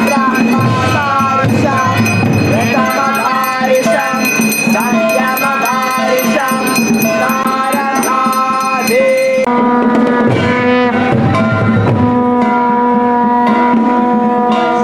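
Kirtan: devotional chanting with hand cymbals and drum keeping a steady beat. About two-thirds of the way through, the melodic singing gives way to long held notes.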